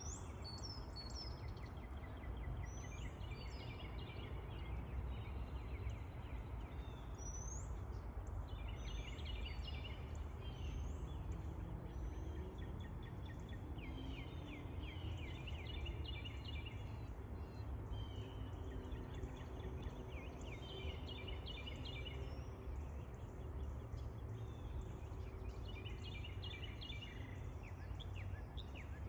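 Songbirds singing, with short chirps and quick repeated trilled phrases every few seconds, over a steady low rumble of outdoor background noise.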